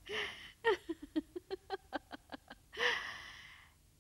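A woman laughing heartily: a quick run of about a dozen 'ha' pulses that fall in pitch, between a breathy gasp at the start and a long breathy out-breath near the end.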